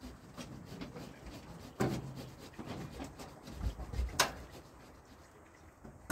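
Scuffing and rubbing as a man climbs onto the loaded bed of a pickup truck stacked with concrete blocks, with a knock about two seconds in and a sharp click a little after four seconds.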